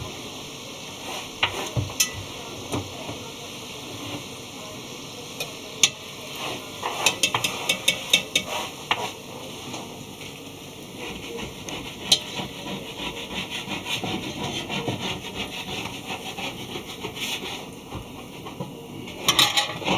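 Kitchen work sounds: light clattering and scraping of utensils and dishes, with scattered sharp clicks and dense runs of small rapid clicks in the second half.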